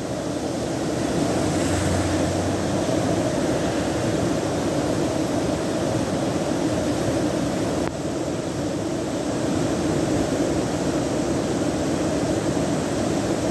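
Storm-swollen stream in flood, its muddy water rushing steadily around a driftwood jam at a wooden bridge.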